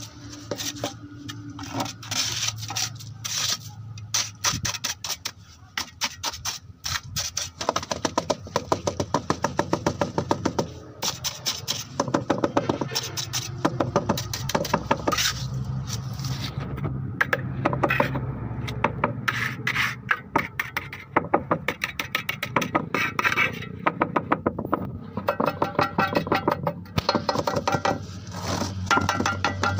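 Metal trowel scraping through wet gravel-concrete mix and working it into a steel paver mould; from about a quarter of the way in it turns to quick repeated taps and scrapes as the wet concrete surface is packed and smoothed.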